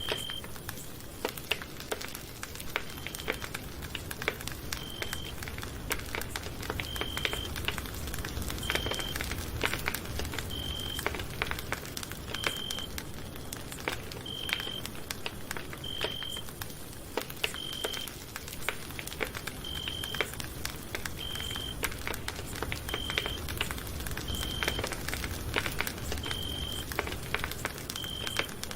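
Campfire crackling, with many sharp pops and snaps over a steady hiss. A short high beep repeats about every two seconds.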